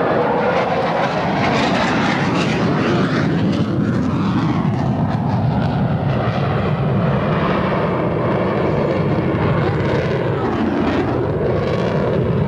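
Jet noise from an F-15 Eagle's twin Pratt & Whitney turbofan engines during a low, slow-speed fly-by. It is a loud, steady roar whose pitch slowly shifts as the jet passes.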